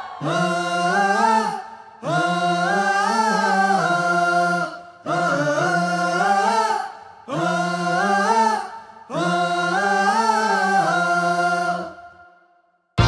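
Men's voices singing a slow a cappella chant in harmony, with no beat under it: five long held phrases with short breaks between them. The voices die away about a second before the end, and a loud beat with heavy bass kicks in right at the very end.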